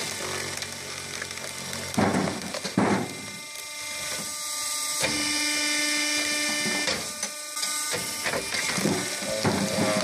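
A vertical firewood splitter with an electric motor forces a round log through a four-way cross wedge. The drive hums steadily, and the wood gives two sharp loud cracks about two and three seconds in, with more cracking and snapping near the end as the log breaks apart.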